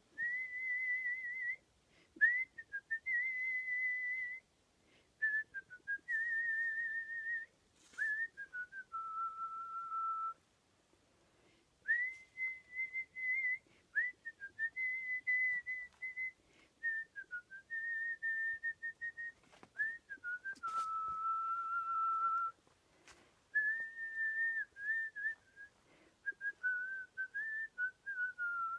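A person whistling a melody by mouth, artistic whistling: a single clear tone in phrases of held and stepping notes, with short pauses for breath and a slight waver on the held notes. The longest pause comes about a third of the way through.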